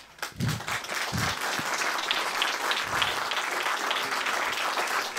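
Audience applauding, a dense patter of many hands clapping that builds within the first second and then holds steady.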